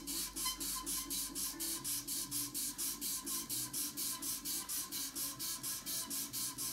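320-grit sandpaper rasping against a newly glued pool cue tip in rapid, even strokes, about five a second: hand-sanding the oversized tip down to the ferrule.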